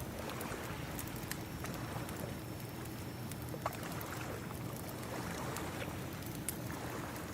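Ocean waves washing steadily, mixed with a wood fire crackling, with scattered sharp pops.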